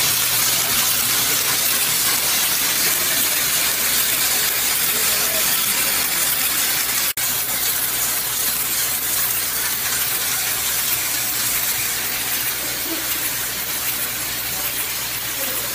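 Fully mechanical high-speed push-pull cap assembly machine running steadily: a continuous, bright, hiss-like mechanical noise over a low steady hum, with a momentary break about seven seconds in.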